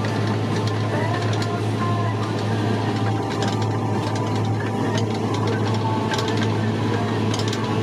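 Kubota M7171 tractor's four-cylinder diesel heard from inside the cab, running steadily at working load while driving a rotary harrow and seed drill: a steady low hum under a busy mechanical whirr.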